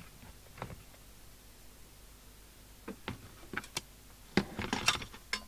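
Scattered light clicks and taps of small objects being handled on a workbench, growing into a quick cluster of clicks near the end.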